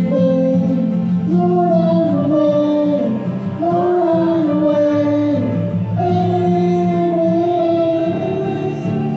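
A child singing a slow worship song in long held notes, accompanied by a Yamaha electric keyboard and an acoustic guitar.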